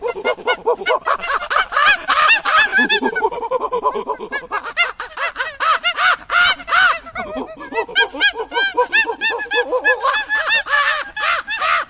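Monkey calling in fast runs of short, harsh chattering calls, several a second, each call rising and then falling in pitch.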